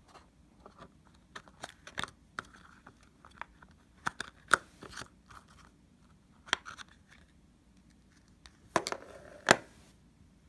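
Clear plastic EarPods case being pried open and handled: a series of sharp plastic clicks, snaps and scrapes, with the loudest snaps near the end.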